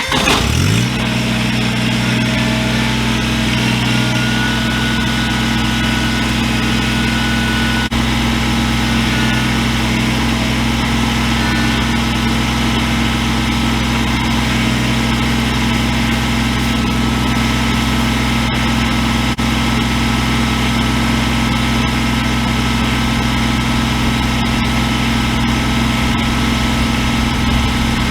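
Tractor engine starting up, climbing in speed for about a second, then running at a steady idle.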